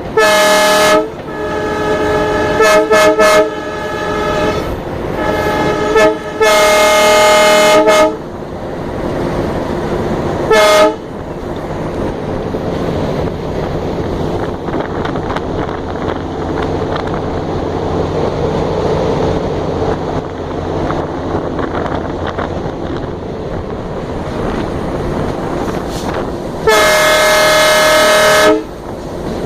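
Diesel locomotive's horn, heard from aboard the locomotive: a chord of several tones blown in a string of short and long blasts over the first eleven seconds, then one long blast near the end. Between the blasts the locomotive's engine runs with a steady rumble.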